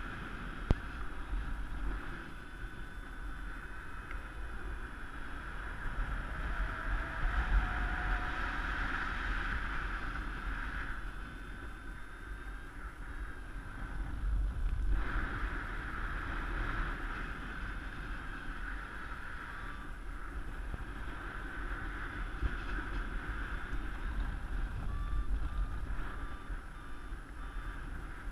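Wind rushing over the microphone of a camera on a paraglider in flight, rising and falling in gusts. There is a sharp tick just after the start, and a row of faint short beeps near the end.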